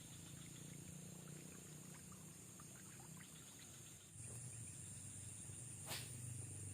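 Faint outdoor ambience: a steady high-pitched insect drone over a low hum, with a few faint ticks and one sharp click near the end.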